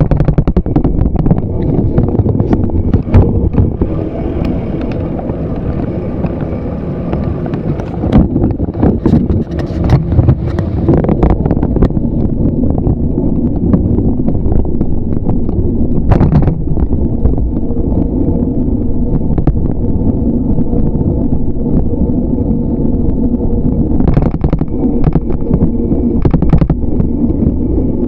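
Steady wind and road noise on a bicycle-mounted camera's microphone while riding, with frequent sharp knocks and rattles as the bike goes over bumps.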